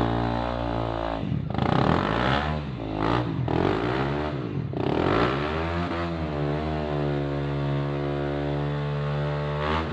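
Motorcycle engine revving up and down several times, then held at a steady high rev near the end, without the bike getting going. The clutch is not engaging or is slipping, so the rear tyre is not driving, as the onlookers suspect.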